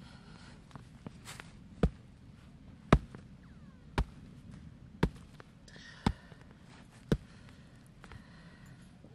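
A series of sharp thuds at an even pace, about one a second, six in a row, from roughly two to seven seconds in.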